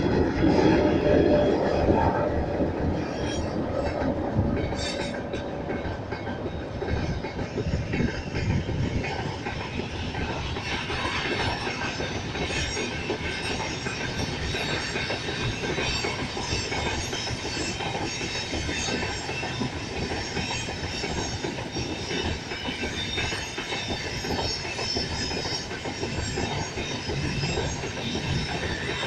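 Freight train rolling past: the 3ES5K "Ermak" electric locomotive goes by loudest in the first couple of seconds, then a long, steady run of freight wagons with wheel clatter and a thin high squeal from the wheels.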